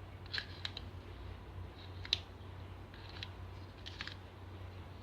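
Shampoo slime being squeezed and stretched by hand, giving a few scattered small sticky clicks and pops over a steady low hum.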